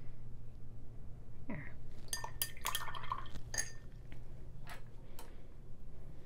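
A paintbrush rinsed in a glass jar of water, its handle clinking against the glass in a quick run of ringing taps about two seconds in, followed by a few lighter single taps.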